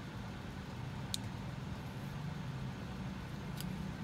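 A steady low machine hum, with two faint light clicks, one about a second in and one near the end.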